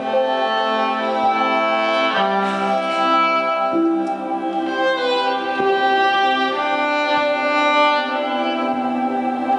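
Violin played live with the bow: long held notes, several pitches sounding together, shifting every second or two in a slow string texture.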